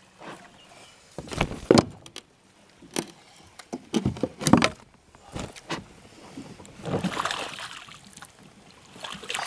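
Irregular splashes and knocks as a hooked bass is played beside a fishing kayak and landed with a net: water splashing and the net and rod bumping against the kayak. The loudest bumps come about a second and a half in and again around four and a half seconds.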